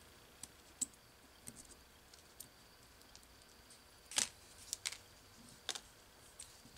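Small metal parts clicking and tapping as the metering lever and inlet needle are worked out of a Tillotson HS carburetor with small tools and set down on cardboard; a handful of light clicks, the loudest about four seconds in. The needle is coming out for inspection because it leaked under a pressure test.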